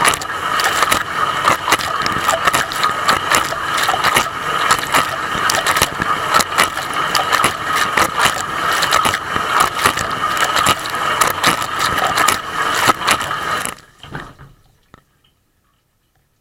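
Dishwasher running, heard from inside the wash tub: water spray hitting and splashing over the camera with a steady whine from the pump and many sharp ticks of droplets. It cuts off about fourteen seconds in.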